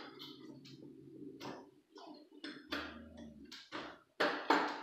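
Irregular sharp clicks and taps of a small hand tool worked against the edge of a wooden screen door, with two louder snaps near the end.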